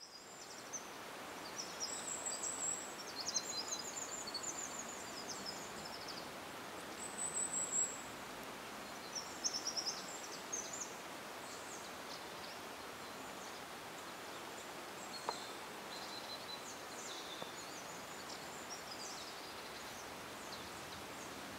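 Small birds chirping with short, high calls, busiest in the first half, over a steady faint outdoor hiss.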